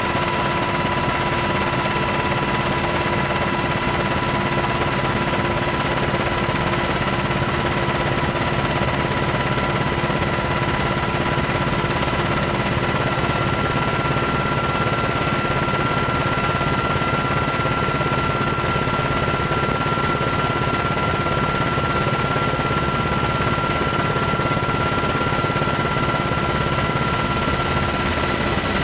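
Steady helicopter engine and rotor noise: an even rushing sound with several constant whining tones over it, unchanging throughout.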